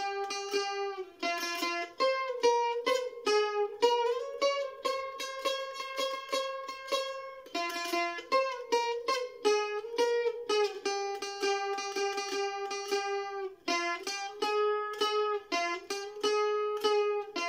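Mandolin playing a slow single-string melody with tremolo picking: each held note is sustained by rapid repeated pick strokes, and the pitch moves from note to note every second or so.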